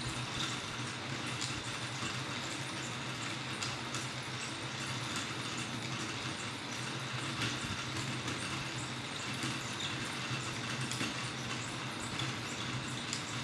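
Laser-cut acrylic planetarium mechanism running steadily: a low hum under a faint, even whirr, with scattered light ticks from the fine acrylic gear teeth.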